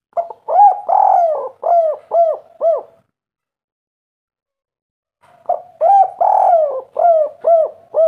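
Spotted dove (derkuku) cooing its "kuk 3" song twice, a few seconds apart. Each phrase is a short coo and a longer coo, followed by three short arching coos.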